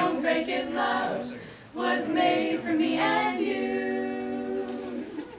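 A small group of girls singing a love song a cappella in harmony. After a short breath, they hold the final chord for about two seconds and end the song.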